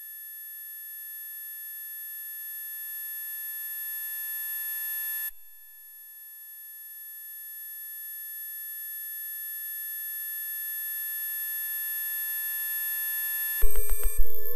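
Electric fish discharges picked up by sensors and played through speakers as a steady electronic tone with many fixed overtones. It slowly swells, drops out abruptly about five seconds in, swells again, and ends in two loud crackling bursts.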